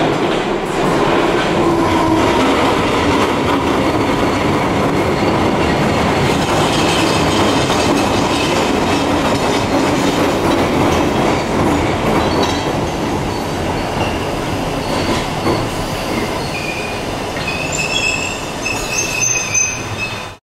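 London Underground train running into the platform with a loud, steady rumble of wheels on rail. Near the end a high metallic wheel squeal sets in over the running noise, and the sound then cuts off suddenly.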